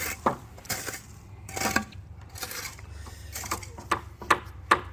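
Irregular sharp clinks and knocks of hard objects, about a dozen, some with a brief ring.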